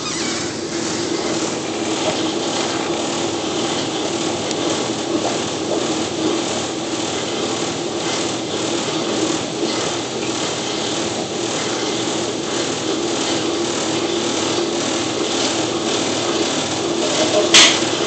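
Hockey puck shooting machine running with a steady mechanical hum, and a sharp clack near the end.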